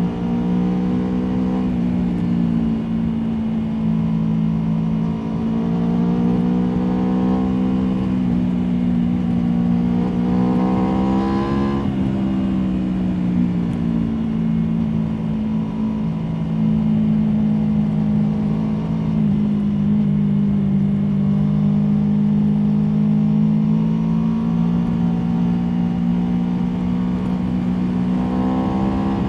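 Aprilia Tuono V4 motorcycle's V4 engine under way: in the first twelve seconds the revs climb in three rising surges, each dropping back sharply as the rider shifts up, then the engine holds at fairly steady revs for a long stretch before climbing again near the end.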